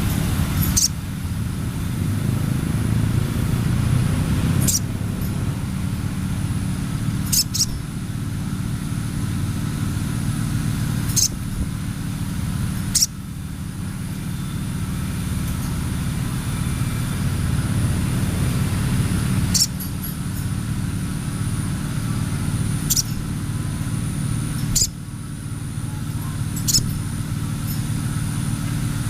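Crimson sunbird (sogon) giving short, sharp, very high chirps every few seconds, about ten in all, over a steady low rumble. The song is played as a lure to set other sunbirds singing.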